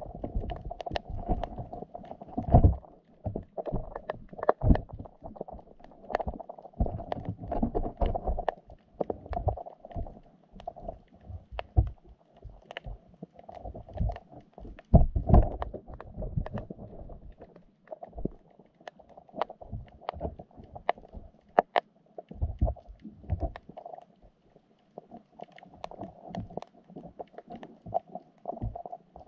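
Muffled underwater sound picked up by a GoPro inside its waterproof housing, submerged in a wire fish trap: a steady dull wash of water with irregular low thumps and short knocks throughout.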